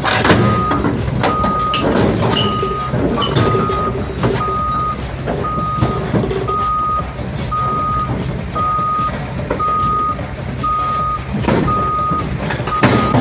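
CAT 320D hydraulic excavator's diesel engine running under load, its steel tracks clanking as it climbs onto a lowboy trailer. A warning beeper sounds steadily, about one beep a second.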